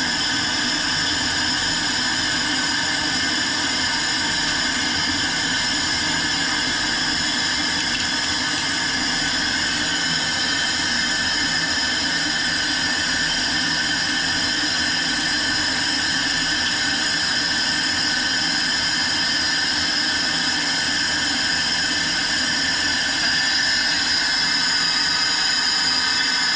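Compressed air rushing steadily through a hyperbaric diving chamber: a loud, even hiss with several steady tones in it.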